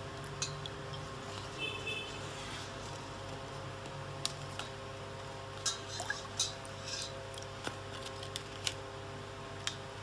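Peepal leaves being dipped and pressed by hand into water in a stainless steel bowl: small splashes and sloshes with light clicks against the metal, coming more often in the second half, over a steady low hum.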